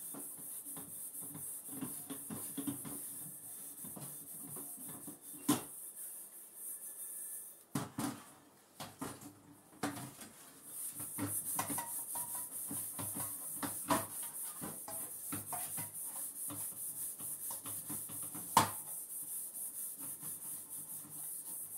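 A metal pot being scrubbed by hand in a stainless steel sink: steady rough scouring, with a few sharp knocks of metal on metal, the loudest near the end.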